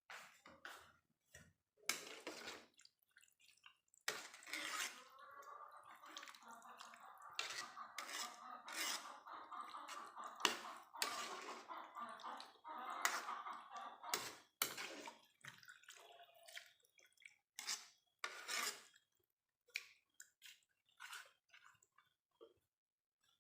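Cooking sounds: a utensil clicking and knocking against a pot or pan, with liquid sloshing and dripping, as short separate strokes with a busier stretch in the middle.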